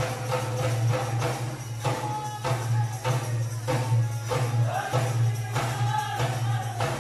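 Live Tharu folk music for the stick dance: singing over a steady beat of sharp strikes, about two a second, above a constant low hum.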